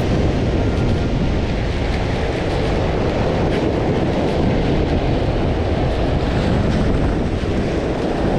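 Wind buffeting the camera microphone in a steady low rumble, over rough sea surf breaking and washing over shore rocks.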